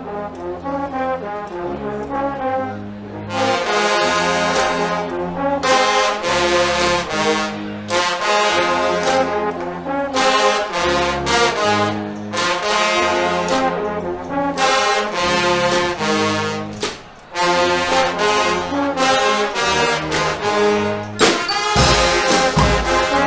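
Guggenmusik carnival brass band playing live: a low brass bass line alone at first, then the full band of trumpets, trombones and sousaphones comes in loud about three seconds in, playing chords in short phrases with brief breaks. Drum hits take over near the end.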